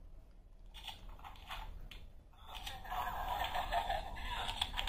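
Paper and card handling as a pop-up book page is turned. From about two and a half seconds in, sound plays from the book's small built-in speaker: thin and tinny, held to a narrow middle range, and louder than the handling.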